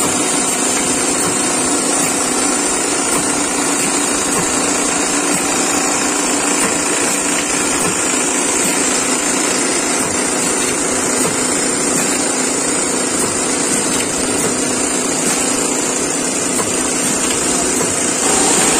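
Plastic bag-making machine running: a steady mechanical hum with a constant high whine as its rollers and shafts turn the plastic sheet through.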